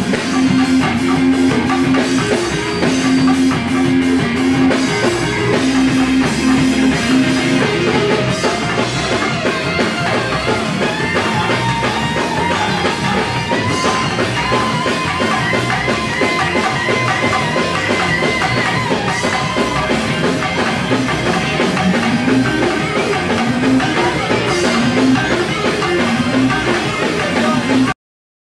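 Live church band playing loud, driving music with drum kit and guitar; it cuts off suddenly near the end.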